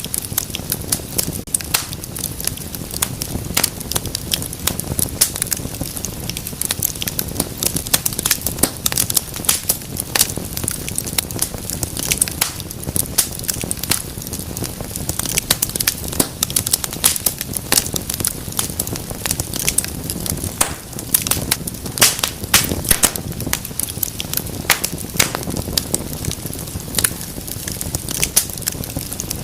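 Wood fire burning in a fireplace, with dense irregular crackles and pops over a soft steady rush of flame.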